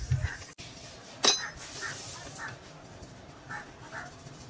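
A single sharp metallic clink with a brief high ring about a second in, like a steel part or tool striking metal, over faint scattered background sounds.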